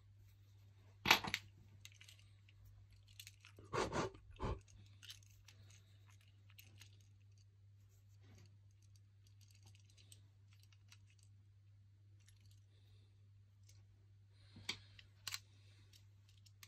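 Handling noise while wiring a UK three-pin plug: a few sharp clicks and knocks of the plastic plug and tools, one about a second in, a short cluster around four seconds in, and two more near the end. A faint low hum runs underneath.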